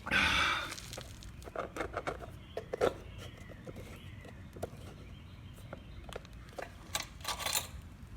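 Recoil pull-start of a pressure washer's Kohler engine, which turns over without catching: a loud rasping pull right at the start and a fainter one near the end, with clicks and knocks of handling in between.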